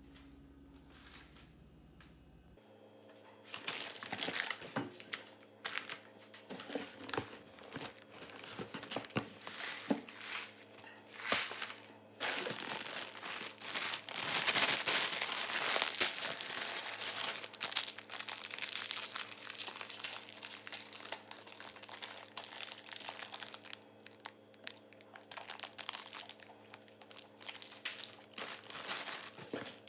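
Crinkly plastic packaging of a snack multipack bag being handled and crumpled, starting a few seconds in, then crackling almost without a break through the middle before thinning to shorter crinkles.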